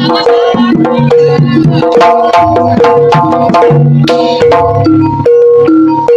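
Javanese jaranan gamelan ensemble playing loudly: hand drums beating a busy rhythm over a quick run of short, struck, pitched notes.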